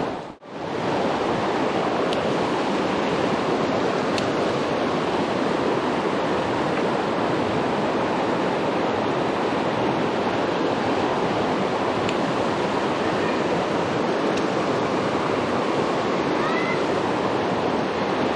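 Shallow, rocky river running fast over rapids: a steady rush of water close to the microphone. The sound drops out briefly just after the start.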